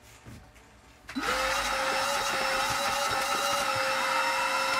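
Vacuum cleaner switched on about a second in, its motor spinning up quickly and then running as a steady whine over a rush of air, used to vacuum dust out of an open crypto-mining rig.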